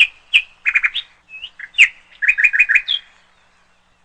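Small bird chirping: a quick run of short, sharp chirps and whistled notes, including a fast series of four near the end, which stops about three seconds in.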